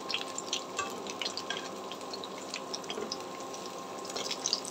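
Battered cauliflower chops deep-frying in hot oil in a wok: a steady sizzle full of small crackles and spits.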